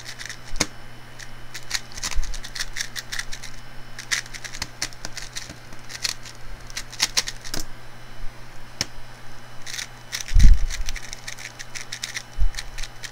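QiYi Tornado V3 M magnetic speedcube turned rapidly in one hand: fast, irregular runs of clicking layer turns that stop about three-quarters of the way through. A heavy thump comes about ten and a half seconds in and is the loudest sound, followed by a few more handling clicks, over a steady low hum.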